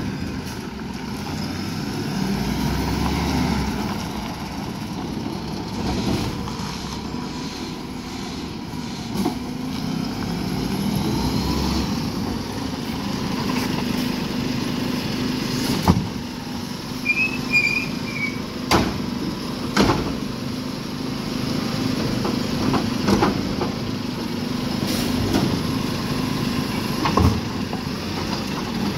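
Side-loader garbage truck's diesel engine running as it pulls up to the bins. From about halfway it holds a steady hum while the hydraulic lifting arm works, with several sharp metallic clanks.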